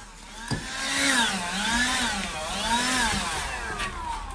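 Gas leaf blower's small two-stroke engine revved up and down over and over, its pitch rising and falling about once a second.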